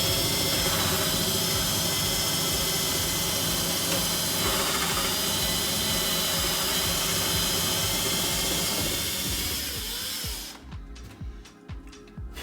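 Power tool running steadily, then cutting off near the end, leaving background music with a beat.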